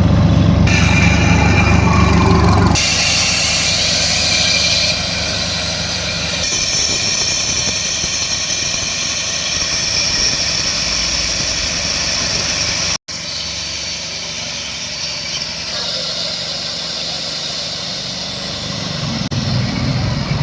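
Engine-driven core drilling machine running as its core bit cuts into asphalt pavement. A heavy low engine note in the first few seconds gives way to a steady higher whine of the cutting, with abrupt changes and a brief dropout about 13 seconds in.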